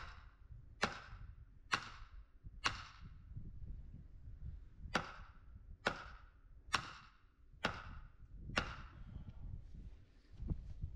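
Hammer blows on the top of a wooden post: nine sharp strikes a little under a second apart, four and then, after a pause, five more, each with a short ringing tail.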